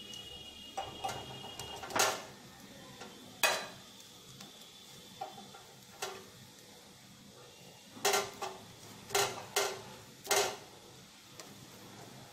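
Steel spoons clinking and scraping against each other and a wire roasting rack on a gas burner as raw mangoes are turned over the flame. There are a few sharp clinks in the first few seconds and a cluster of them about eight to ten seconds in, over a steady low hiss.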